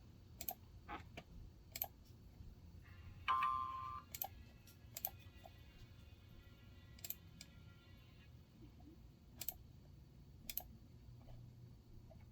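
Faint, irregular sharp clicks, about ten of them, over a low hum. A brief pitched tone sounds about three seconds in, and faint steady tones linger until about eight seconds.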